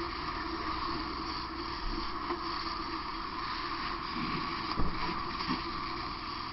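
Fire hose stream spraying water onto burned debris: a steady rushing hiss, with a sharp knock about five seconds in.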